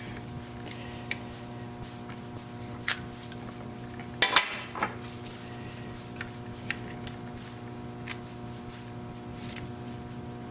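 Small metal oil filter parts clinking and tapping as they are handled and fitted together, with one louder clatter about four seconds in, over a steady hum.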